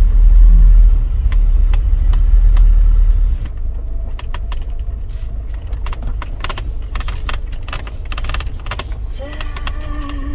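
Camper van driving slowly, with a low, loud road and engine rumble in the cabin that drops away about three and a half seconds in as the van slows. A run of clicks and crackles follows, and a short steady tone near the end.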